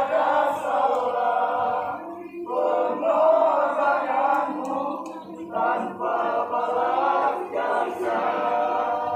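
A group of voices singing a slow song together in long held phrases, with brief breaths between phrases.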